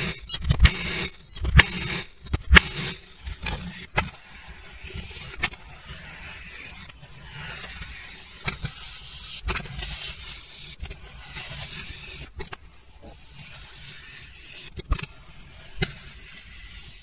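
A stainless crinkle-cut knife slices down through a block of kinetic sand in a few quick, crunchy cuts, each ending in a sharp knock. After about four seconds, a small metal melon-baller scoop scrapes and rubs slowly through soft kinetic sand, with a grainy scraping sound and an occasional light click.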